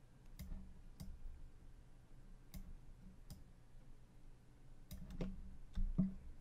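Several sharp, irregularly spaced clicks of a computer mouse and keyboard as an object is moved in 3D software, over a faint steady low hum.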